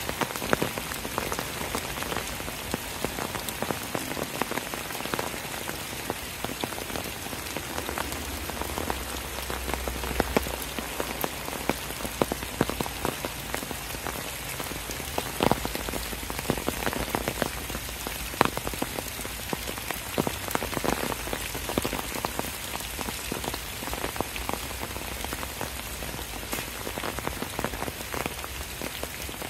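Steady rain falling: an even hiss dotted with many sharp, close drop hits. A low rumble swells underneath for a few seconds around ten seconds in.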